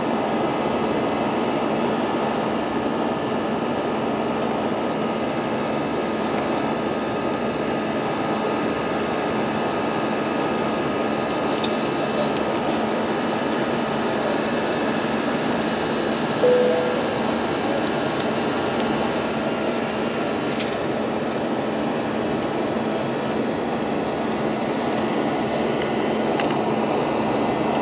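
Cabin noise of an Airbus A320 climbing after takeoff: the jet engines running at climb power heard from inside, a steady rushing noise with a faint hum underneath. A short single tone sounds a little past halfway.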